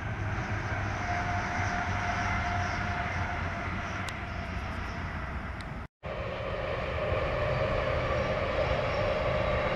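Electric passenger trains running across a high brick railway viaduct: a steady rumble and rush of wheels on rail with a faint steady whine. The sound cuts out briefly about six seconds in and resumes with another passing train.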